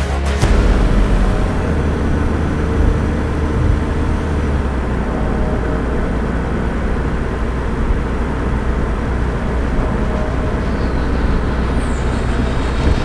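Steady low rumble of vehicles driving: engine and tyre noise.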